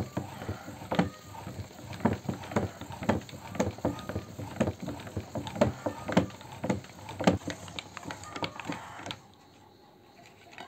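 A hand-cranked metal meat grinder is turned while loaded with toothpaste, its crank and auger clicking and knocking about twice a second. The cranking stops about nine seconds in.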